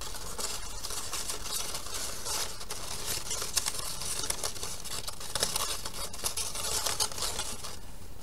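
Construction paper strips rustling and sliding against each other as they are threaded through a woven paper basket, with small irregular crackles throughout.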